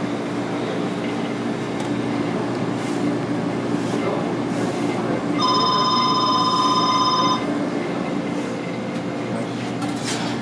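Steady hum and rushing noise of kitchen machinery, with an electronic ringing tone lasting about two seconds about halfway through.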